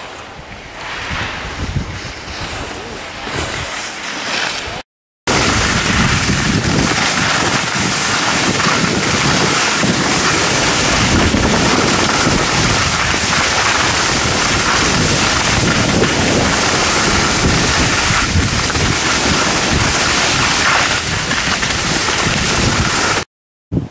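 Wind rushing over the microphone of a camera carried by a skier going fast down a groomed run. It is a loud, steady rush of noise. A quieter stretch of wind and snow noise comes first, and the sound cuts out briefly about five seconds in and again near the end.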